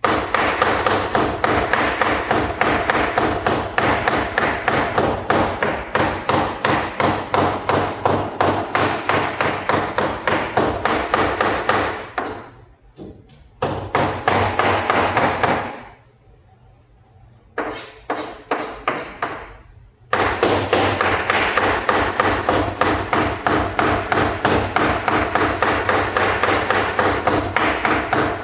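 Chicken being minced into keema with a cleaver on a chopping block: rapid, steady, repeated chopping strokes, several a second, with a few short breaks partway through.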